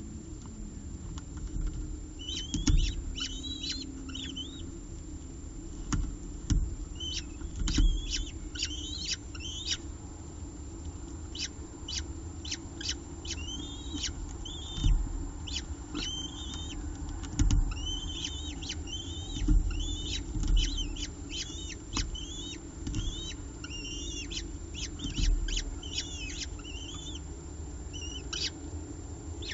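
Peregrine falcon eyases calling in quick runs of short, high chirps that rise and fall, begging while they are fed pieces of prey. Dull low thumps come now and then among the calls.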